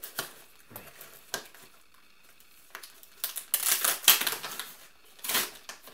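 Stiff plastic packaging crinkling and crackling as it is cut open with a Buck 119 fixed-blade knife, with scattered clicks, a louder stretch of crackling about three and a half seconds in and another burst near the end.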